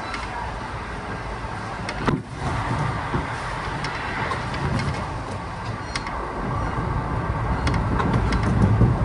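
Kintetsu 1620 series electric train running, heard from inside the car: a steady rumble with rail noise and scattered clicks, and a sharp knock about two seconds in.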